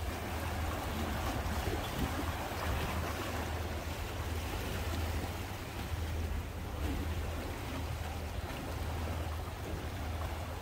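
Small sea waves washing against breakwater rocks, a steady hiss with a low steady hum underneath.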